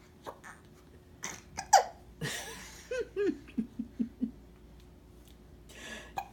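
Baby hiccups: a few short, sharp hiccups in the first two seconds, the loudest just under two seconds in. They are followed by a breath and a quick run of about six giggling pulses, then a soft breath near the end.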